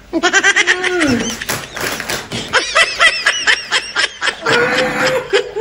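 Laughter: rapid, repeated laughing with short voiced exclamations, the first falling in pitch about a second in.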